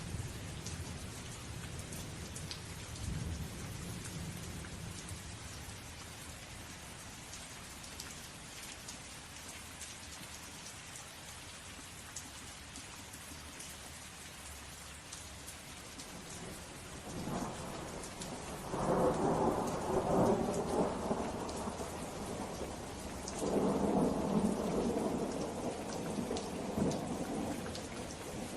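Steady rain falling, with rumbles of thunder: a low rumble fading away over the first few seconds, then two louder rolls of thunder, one about two-thirds of the way through and another near the end.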